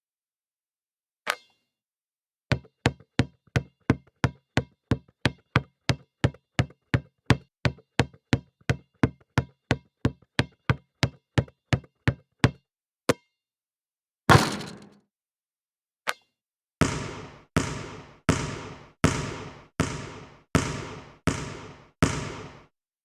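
Basketball bouncing on a hard floor: one bounce, then steady dribbling at about three bounces a second for some ten seconds, a few separate bounces, then about ten slower bounces at a little under two a second, each ringing with an echo.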